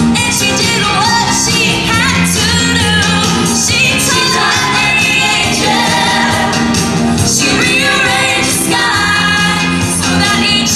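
A live band playing a pop song with singing over drums and bass.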